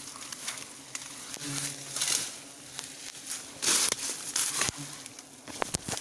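Leaves and dry undergrowth rustling and crunching in irregular bursts as someone pushes through the vegetation, with a few sharp snaps near the end.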